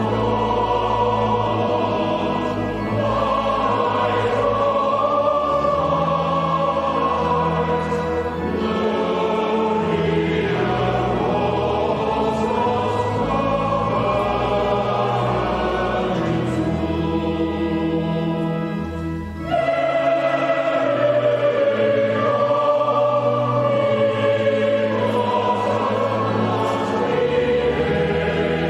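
A choir singing a slow piece with long held notes over a low sustained accompaniment. The phrase breaks off briefly after about nineteen seconds, then resumes.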